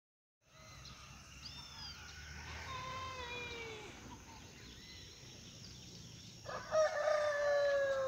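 Rooster crowing twice: a fainter crow about three seconds in, then a louder crow starting about six and a half seconds in. Both calls fall in pitch toward the end. High, brief chirps of small birds sound early on.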